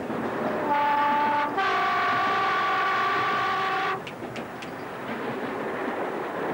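Train horn sounding two notes, a short lower one then a longer higher one lasting about two seconds, over the steady running noise of the train heard from on board. A few light clicks follow near the end of the horn.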